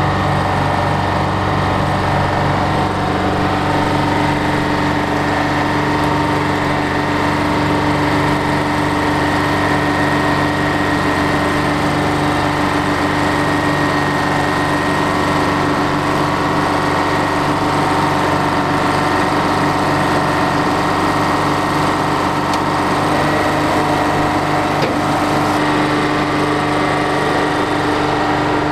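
Heavy equipment engine running steadily at one speed, with no change in pace.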